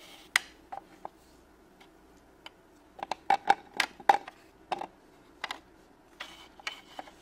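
Small plastic Shopkins figures clicking and clattering against the plastic pull-out drawer of a toy fridge as they are put in. Sparse single clicks at first, then a quick run of them around three to four seconds in, then a few more.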